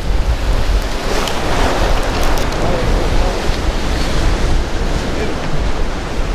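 Wind buffeting the microphone with a steady rumble, over the rushing wash of surf and waves.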